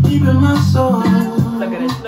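Background music: a song's instrumental stretch with a steady bass line and melody, no vocals.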